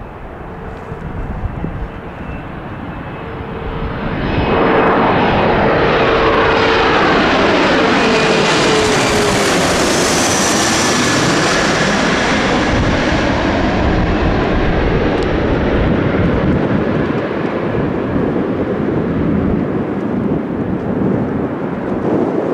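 Lufthansa CRJ-900 regional jet's two rear-mounted turbofans passing low overhead on approach. The engine noise swells sharply about four seconds in, and its whine drops in pitch as the jet passes overhead around ten seconds in, leaving a broad steady rumble as it flies on.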